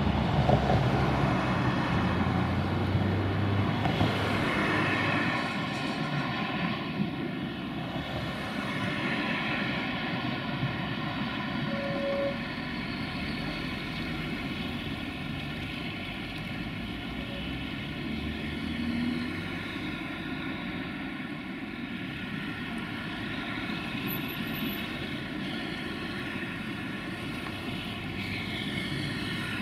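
A Siemens Imperio tram pulling away on its rails, its rumble loudest at first and easing off after about six seconds. Then a Tatra KT4DM tram creeping along at shunting speed, giving a steady droning hum of several even tones.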